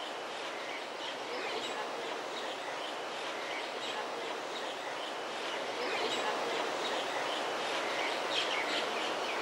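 Outdoor ambience: many small birds chirping and calling in quick, scattered notes over a steady background hiss, growing slightly louder about six seconds in.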